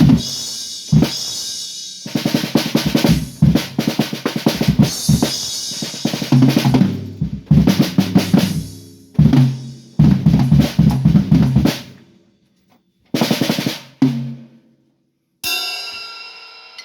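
Drum kit played in quick fills: rapid snare and tom strokes with bass drum and cymbal hits. The playing stops about twelve seconds in, followed by two short bursts of hits and a final strike that rings on and fades.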